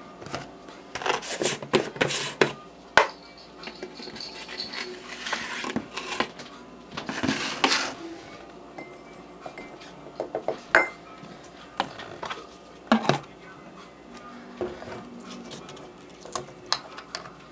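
Scattered clicks, knocks and clatter of a plastic protein-powder scoop, tub and bottle being handled on a wooden table, with a longer rustling hiss about seven seconds in.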